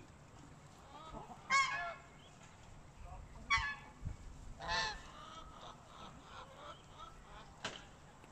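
Domestic geese honking: three loud honks a second or two apart, with quieter calls after them, and a sharp click near the end.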